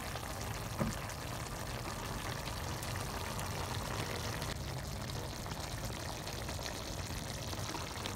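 Chicken liver igado simmering in a wok: a steady soft bubbling of the sauce with fine ticks. There is a light knock about a second in.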